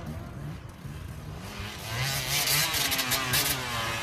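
Enduro motorcycle engine coming closer and passing, its pitch rising and falling with the throttle, and getting louder from about two seconds in.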